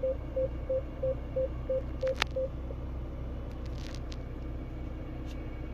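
Fiat Toro's rear parking sensor beeping with reverse engaged: short even beeps about three a second, stopping about two and a half seconds in. Under it runs the low hum of the idling engine, with a single sharp click just before the beeping stops.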